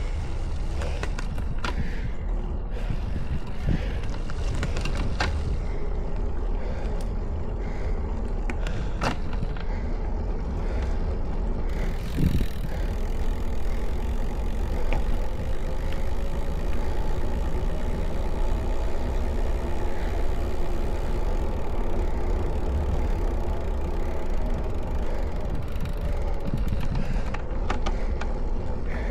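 Steady wind rumble on the microphone of a camera on a moving road bike, mixed with the rolling noise of the tyres on asphalt, with a few sharp clicks and knocks now and then.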